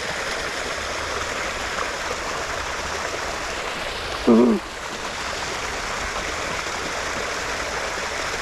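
Shallow creek water running steadily over rocks. About four seconds in, a person's voice gives a brief hum.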